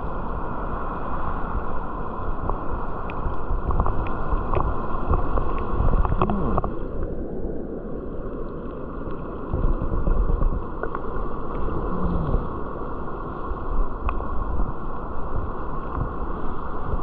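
Steady rushing of waterfall water, with wind rumbling on the microphone.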